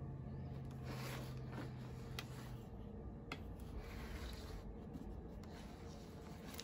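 Faint rubbing and handling noises on a hollow plastic blow mold, with a few light clicks. A low hum stops about two and a half seconds in.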